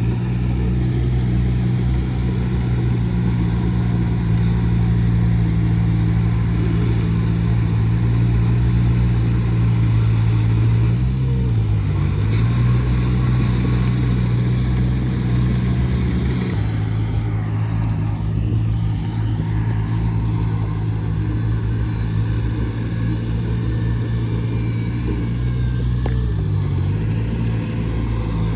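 Diesel engine of heavy earthmoving machinery running steadily at working speed, its pitch sagging briefly twice as it takes load. The higher clatter changes about halfway through.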